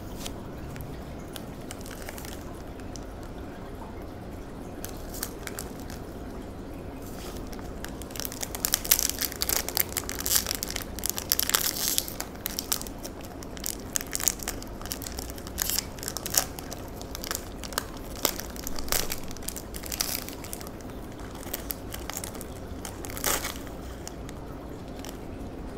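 Foil-lined plastic wrapper of a Hup Seng sugar cracker packet crinkling and tearing open in runs of sharp crackles, starting about a third of the way in and loudest soon after. It keeps rustling, with one more loud crackle near the end, as the crackers are drawn out of the packet.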